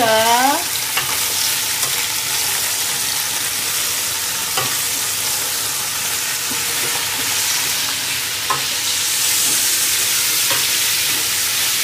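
Raw chicken drumsticks being stirred into sautéing onion, garlic and ginger in an aluminium pot: a steady oil sizzle, with the spatula knocking lightly against the pot a few times.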